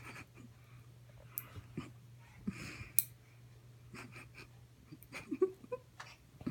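Soft rustles, bumps and small knocks of a toddler clambering over a fabric couch, with a short breathy sound about two and a half seconds in, over a low steady hum.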